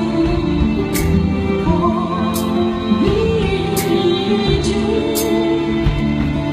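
A woman singing a slow ballad live over instrumental accompaniment, holding one note with vibrato about three seconds in; light percussive strokes mark the beat about once a second.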